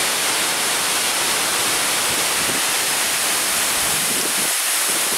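Waterfall cascading down a rock face: a loud, steady rush of falling water.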